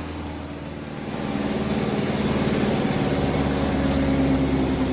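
IFA W50 truck's four-cylinder diesel engine running under load as the truck drives off-road through mud. The engine gets louder about a second in and then holds steady.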